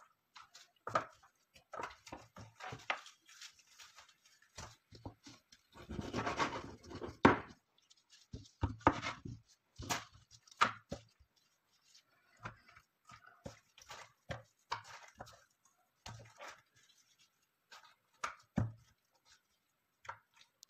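Kitchen knife cutting and separating raw chicken on a cutting board: irregular taps and knocks of the blade on the board. A denser patch of noise about six seconds in ends in the loudest knock.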